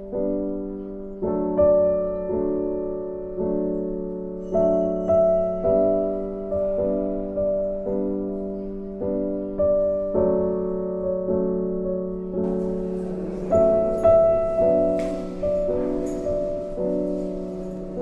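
Background piano music: slow notes and chords, each struck and left to fade, about one or two a second. A faint hiss with light high ticks joins about two-thirds of the way through.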